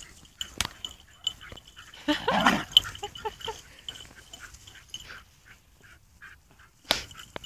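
Two dogs, a wire fox terrier and a basset hound, playing: short dog vocal noises, with one longer, louder one about two seconds in. A few sharp clicks come near the start and near the end.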